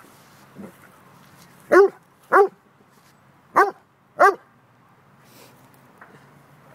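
A dog barking: four short, loud barks in two pairs, the first pair about two seconds in and the second about a second later.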